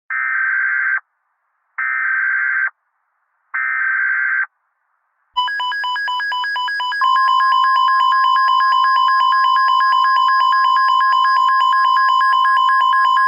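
Emergency Alert System SAME header: three short bursts of buzzy digital data tone, about a second each with brief gaps between. About five seconds in, a rapidly pulsing buzzy tone starts, and about seven seconds in a steady single-pitch attention tone joins it and holds.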